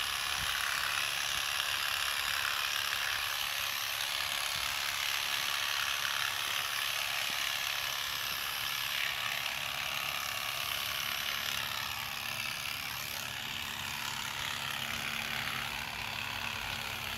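Corded electric animal clippers running steadily as they shear the hair on a donkey's leg.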